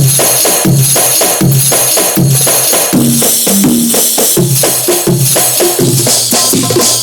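Keyboard rhythm-set demo playing a fast percussion groove: jingling tambourine-like hits and drum strokes in an even pattern over a repeating bass line.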